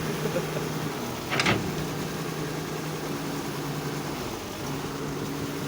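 Excavator's diesel engine running steadily, with a short hiss about a second and a half in.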